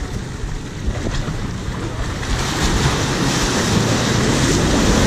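Ocean swell surging and breaking against concrete landing steps, the wash growing louder about two seconds in as a wave floods the steps.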